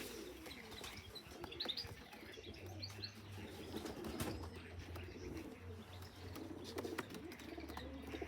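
Young racing pigeons in a loft: faint wing flapping and soft cooing, with a few short high squeaks in the first three seconds.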